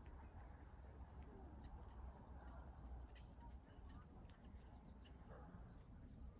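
Near silence: faint, brief bird chirps scattered throughout, over a faint low rumble.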